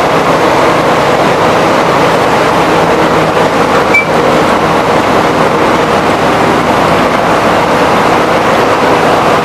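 Sugarcane crushing mill machinery running: a loud, steady mechanical din with a faint steady hum, and a brief high squeak about four seconds in.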